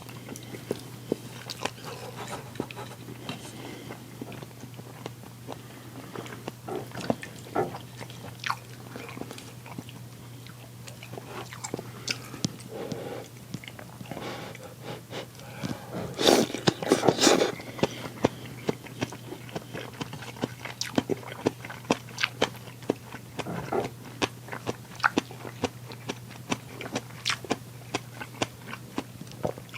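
Close-miked eating: biting and chewing with frequent short clicks and crunches, over a steady low hum. A louder run of chewing sounds comes about halfway through.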